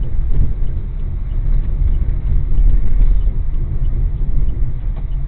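A car driving in traffic: steady low rumble of engine and road noise heard from inside the cabin.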